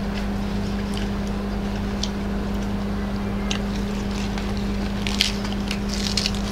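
A steady machine hum, with a few crisp crunches near the end from lettuce leaves being torn and chewed.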